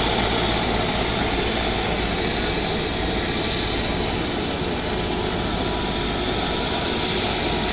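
Aircraft engine noise heard as a steady, even hiss and rumble, swelling slightly near the start and again near the end.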